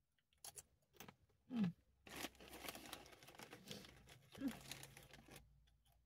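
Plastic chip bag crinkling and rustling for a few seconds as a hand rummages inside it for a chip, after a few sharp crunching clicks. Two brief low voice sounds cut in, about a second and a half in and again near the end of the rustling.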